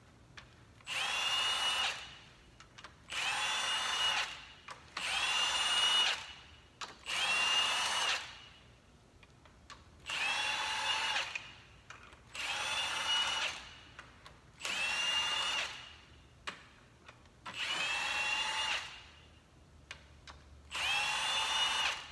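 Cordless impact wrench spinning out cylinder head bolts, in nine short runs of about a second each. Each run is a whine that rises as the motor spins up and then holds steady.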